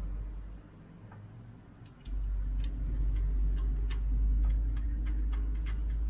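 Light clicks of hand tools on the small-block V8's valvetrain as a rocker arm is refitted, coming irregularly a few times a second. Under them, a loud steady low hum starts about two seconds in.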